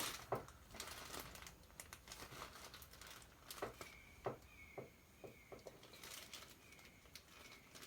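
Faint handling of bead strands in plastic packaging: light crinkling with scattered soft clicks and taps. In the second half a few short, faint high tones repeat about every half second.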